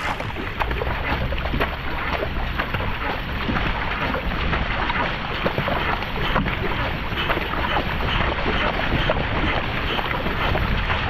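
Paddle blades splashing in and out of the water on alternate sides as a narrow racing kayak is paddled hard, with water rushing along the hull. Wind buffets the microphone throughout.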